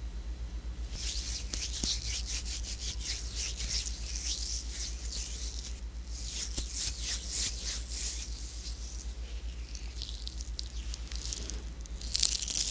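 Palms and fingertips rubbing close to an ear-shaped binaural microphone: dry, hissing skin-on-skin friction in two long stretches. Near the end the fingers rub directly over the microphone's ear, louder and closer.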